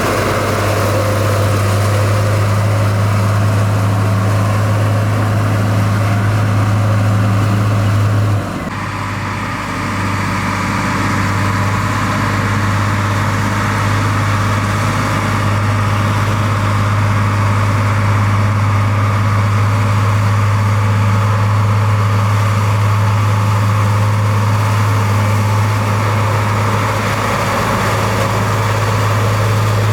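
Heavy construction machine's diesel engine running steadily with a strong low hum. About eight seconds in the sound drops briefly, then picks back up.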